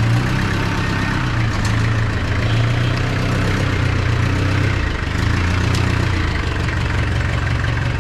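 A vehicle engine idling steadily, with a small shift in its pitch about five seconds in.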